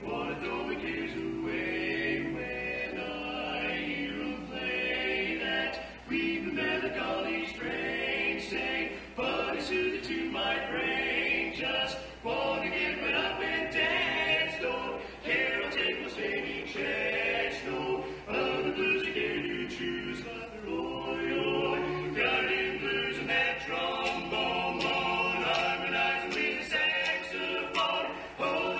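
Male vocal quartet singing a cappella, several voices together in harmony, with brief breaks between phrases.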